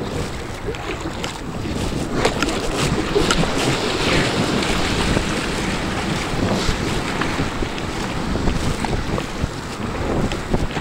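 Wind buffeting the microphone over choppy surf, with water splashing and sloshing around a kayak as it is paddled.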